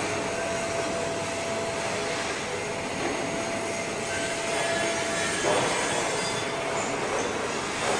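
Steady machinery noise of a steel fabrication workshop, with a thin steady whine over it that fades away about five and a half seconds in.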